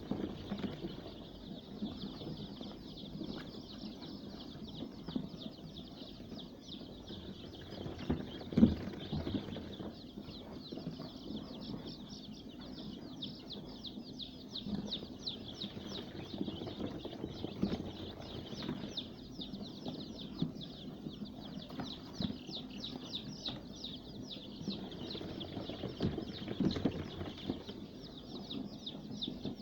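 A brood of five-day-old layer chicks peeping continuously, many short high cheeps overlapping, with one sharp knock about eight and a half seconds in.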